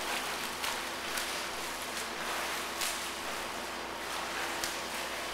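Swimmers' arm strokes splashing through pool water: a splash every second or so over a steady hiss of churning water.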